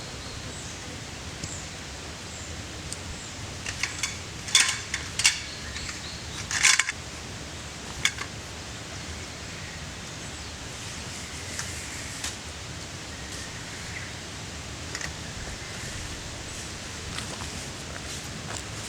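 Steady outdoor background hiss, with a short burst of sharp knocks and clatters a few seconds in and one more shortly after.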